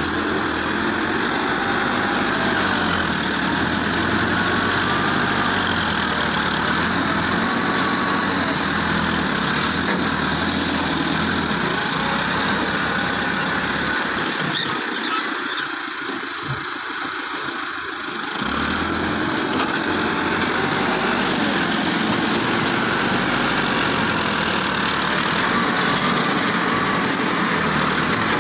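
Heavy diesel machinery engine running steadily. Its low-pitched part drops away for a few seconds around the middle, then returns.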